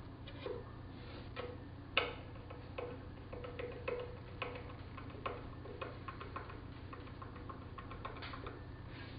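Irregular light clicks and knocks of a small wooden birdhouse being handled, its parts tapping together, over a steady low hum.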